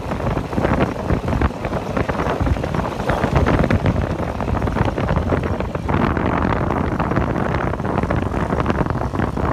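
Open tubular dune buggy driving along, its engine running under heavy wind buffeting on the microphone.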